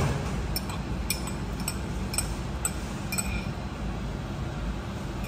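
A run of about eight light, ringing clinks over three seconds as a small ceramic bowl of sliced green onions is tipped and tapped out into a hammered metal hot pot, over a steady low background hum.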